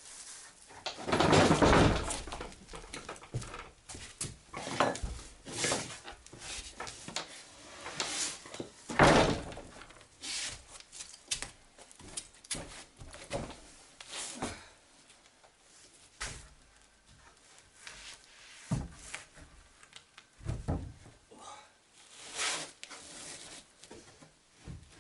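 A heavy sheet of plywood being handled and fitted into place: irregular thuds, knocks and bumps of wood. The loudest come about a second in and about nine seconds in.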